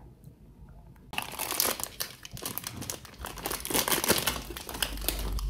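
Crinkly plastic snack packet being pulled open by hand, with a dense run of crackling that starts about a second in.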